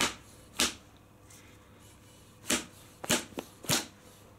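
Sharp knocks as a new fork dust seal is pounded down onto a Suzuki DR650 front fork tube: two knocks, a pause of about two seconds, then three or four more in quick succession. The seal is moving down into place.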